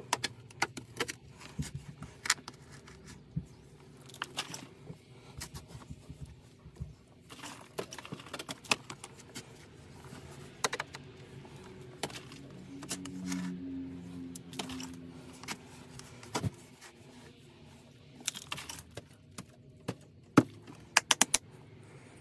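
Short-handled shovel digging by hand into packed soil in a crawl space, with irregular scrapes and sharp knocks as the blade strikes dirt and stones, one louder knock near the end.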